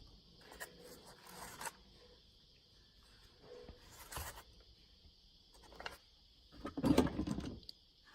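Tooling accessories being handled and moved about: intermittent scraping and rustling, with a louder spell of clattering and rummaging about seven seconds in.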